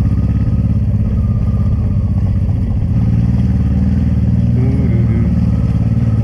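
Honda Transalp 600's V-twin engine running as the motorcycle rides slowly, getting a little louder about three seconds in.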